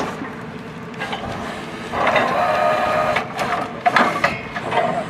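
Borewell drilling rig's machinery running steadily while casing pipes are handled. A pitched ringing, whining sound comes in at about two seconds, followed by a few sharp knocks.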